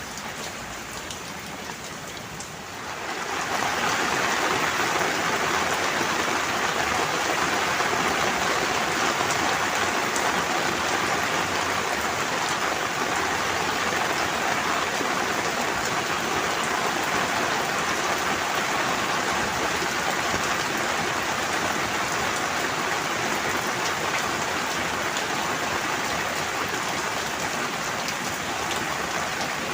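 Steady rain falling, a dense even hiss that swells to heavier rain about three seconds in and then holds steady.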